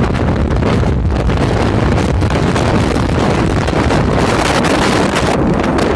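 Strong wind buffeting the camera microphone: a loud, continuous rumble that swells and eases with the gusts.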